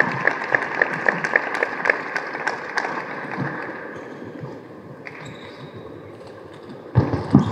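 Celluloid-plastic table tennis ball bounced over and over, sharp clicks about three to four a second that fade out around three seconds in. A brief louder thump with a voice-like sound comes near the end.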